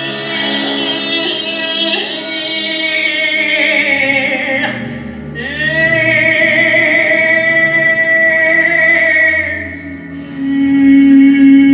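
Music: a female voice singing long, wavering held notes over a steady low drone. Near the end a strong, steady low tone comes in.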